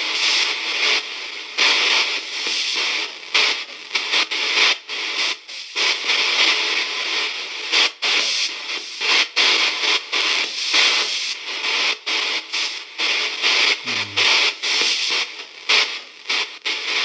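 Ghost box app sweeping through its radio audio banks: a hiss of radio static broken every half second or so by short cuts, with brief chopped fragments of music.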